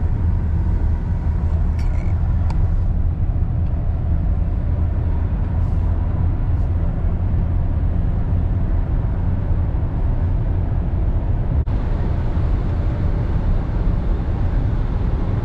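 Truck driving: a steady low engine and road rumble, with a few faint clicks about two seconds in.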